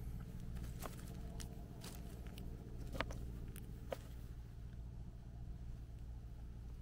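Chestnuts clicking against each other in the hand and dropping into a tub of nuts and husks: a handful of scattered light clicks, the loudest about three seconds in. A steady low hum runs underneath.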